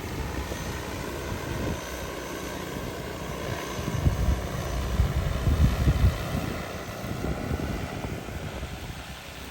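DJI Agras T30 six-rotor spraying drone flying over the field, its rotors giving a steady whirring whine. Low buffeting thumps, the loudest part, come about four to six seconds in.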